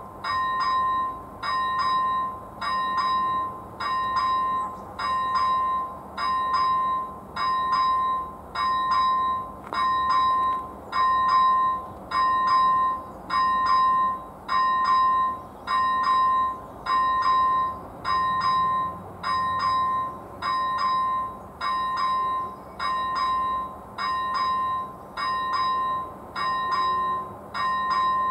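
Electronic level-crossing bell (ZV-01 on an AŽD 71 warning signal) ringing a steady, evenly spaced ding about every three-quarters of a second, the crossing's warning that a train is approaching.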